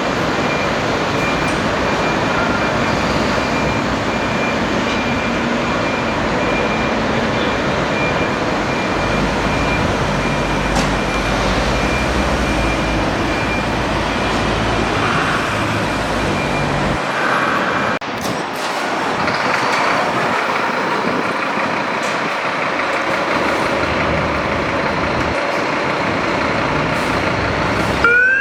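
Fire trucks' diesel engines running as the appliances move off, with a thin steady high tone through the first half. The low rumble drops away about two-thirds of the way in, and a siren starts winding up at the very end.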